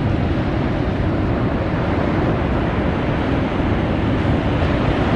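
Outboard motors of a boat running hard as it punches out through the surf, a steady dense noise mixed with the wash of breaking waves.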